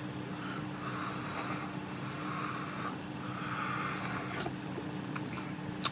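Quiet room tone: a steady low hum, with soft hissing swells about a second in and again through the middle, and a light click near the end.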